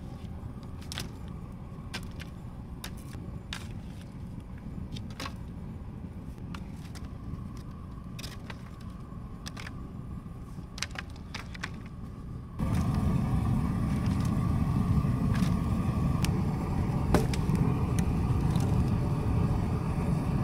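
A John Deere 755 compact tractor's small diesel engine idling steadily while warming up, with scattered sharp clicks over it. About twelve and a half seconds in the engine sound suddenly becomes much louder and fuller.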